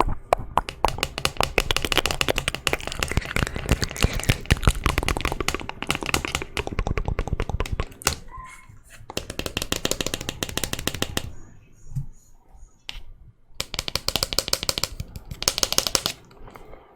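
Hairbrush bristles stroked close to the microphone: a dense run of scratchy crackles in spells, pausing about eight seconds in and again from about eleven to fourteen seconds.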